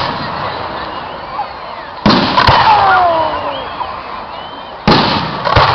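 Aerial fireworks shells bursting, in two pairs of sharp bangs with a trailing rumble: one pair about two seconds in, the other near the end, over crowd chatter and exclamations.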